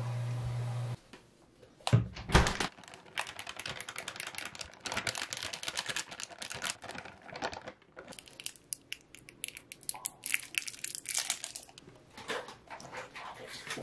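Plastic bag of shredded cheese crinkling and rustling as the cheese is shaken out onto a nonstick grill tray, with a few knocks about two seconds in. Near the end come scraping and patter as corn kernels are scooped in with a spatula. A steady low hum cuts off after about a second.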